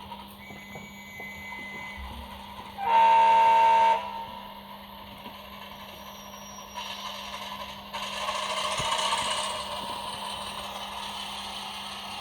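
Model locomotive's sound decoder playing recorded sounds of a Renfe 1600 series diesel: a single horn blast about one second long, about three seconds in, then the diesel engine sound swelling up around seven to eight seconds in and slowly easing back, over a steady low hum.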